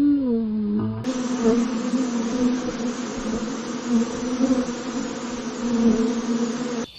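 The end of a low animal call that rises and falls in pitch, then, after a cut about a second in, a steady insect buzzing that wavers slightly.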